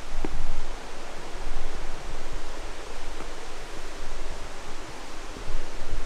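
Footsteps of a hiker walking along a rough mountain trail, the loudness swelling with each step, over a steady rushing noise.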